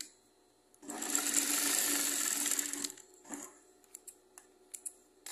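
Yamata straight-stitch sewing machine running for about two seconds as it stitches a seam in viscose fabric, then a brief second burst of stitching, followed by a few light clicks of handling.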